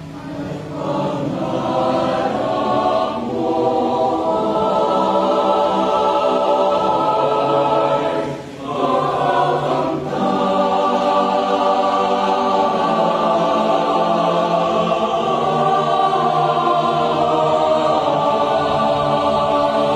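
Mixed choir singing a Tagalog contemporary worship song in sustained, full chords, with a short breath break about eight and a half seconds in.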